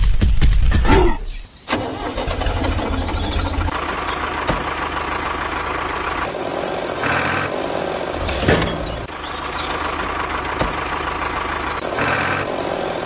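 A vehicle engine sound: a loud low rumble for the first second or so, then steady running at an even level with a few brief swells.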